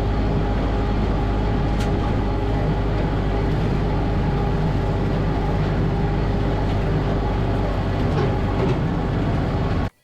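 Steady vehicle running noise: a loud, even low rumble with a constant hum, cutting off suddenly at the end.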